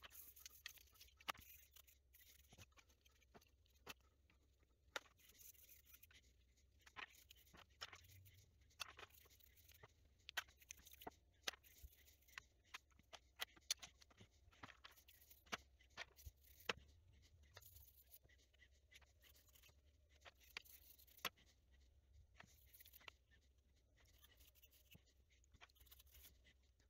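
Faint, irregular small clicks and taps of plastic Commodore 64 keycaps being handled: a metal spoon clinking in a plastic tub as keycaps are fished out of soapy water and set down on a towel.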